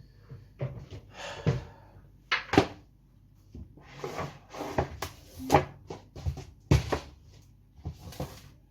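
Kitchen handling noises: a run of irregular knocks and clatters from containers and utensils being moved, with brief rustling between them.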